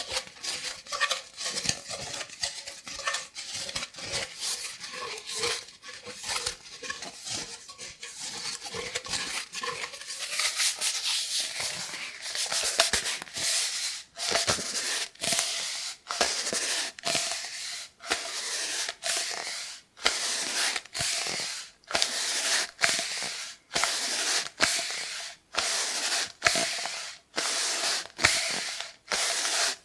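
Cardboard kitchen-roll tube scratched and rubbed close to the microphone: quick, irregular scratchy strokes at first, settling from about halfway into slow, even rubbing strokes at roughly one a second.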